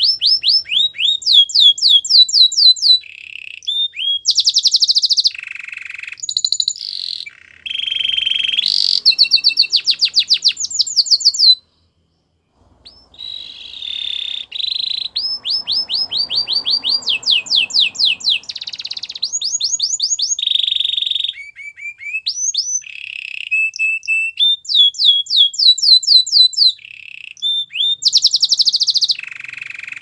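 Domestic canary singing a long, continuous song: fast trills of rapidly repeated falling notes alternating with held whistled tones, with one brief pause partway through before it starts again.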